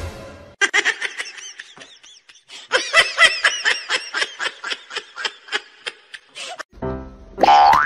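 High-pitched human giggling: a long run of quick, short laughs, several a second. Near the end a rising sliding tone begins.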